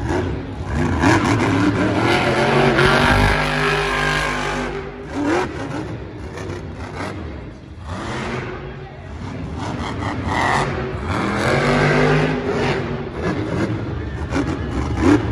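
Monster truck's engine revving hard in surges, its pitch rising and falling as the truck is driven around the dirt course, with a heavy thud about three seconds in.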